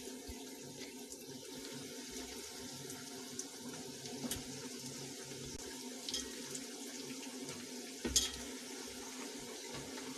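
Bread cubes frying in hot oil in a frying pan: a steady, fairly faint sizzle, with a few sharp clicks as a slotted spoon stirs them.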